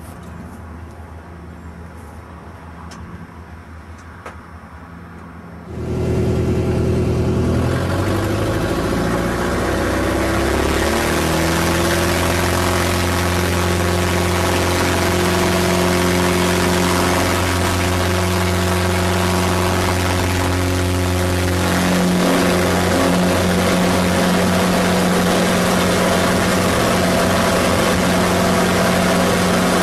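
Pitts Special biplane's piston engine and propeller, idling quietly at first. About six seconds in it becomes loud, heard from the cockpit. The note rises as power comes up for the takeoff roll, then runs steadily at full power in the climb.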